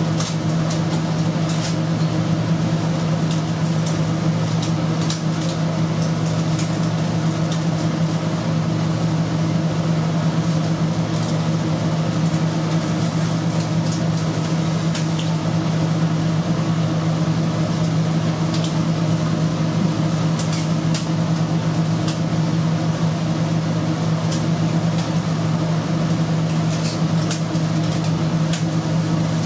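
Steady mechanical hum of kitchen machinery such as a ventilation fan or refrigeration unit, low-pitched and unchanging, with faint scattered clicks over it.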